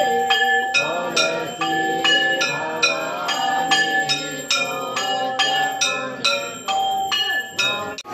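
Background devotional music: a bell-like instrument struck in a steady rhythm, about two to three strikes a second, each strike ringing, over held lower notes that move like a melody.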